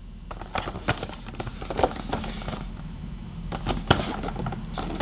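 Small cardboard box and packaging being handled, making an irregular run of crackles, taps and rustles.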